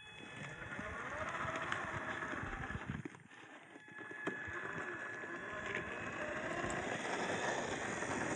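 Traxxas TRX-4 RC crawler's stock electric motor and gears whining, rising and falling in pitch with the throttle, over tyres crunching on dirt and rocks. It eases off about three seconds in and picks up again a second later.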